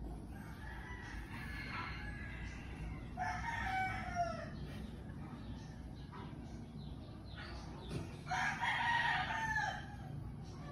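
A rooster crowing twice: once about three seconds in and again about eight seconds in, each call lasting over a second and falling in pitch at its end.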